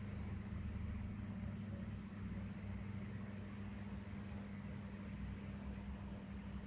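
Steady low background hum with a constant droning tone, the room's machine or electrical noise, and no other event.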